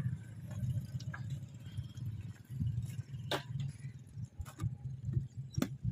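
A few sharp clicks and clinks as small glass medicine vials and their packaging are handled, three or four times, over a low uneven rumble.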